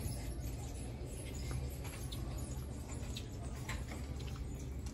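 Supermarket store ambience: a steady low hum with scattered light clicks and taps.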